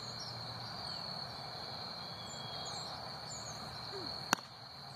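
A pitched softball smacks once into a catcher's mitt near the end, a single sharp pop. Underneath, crickets trill steadily.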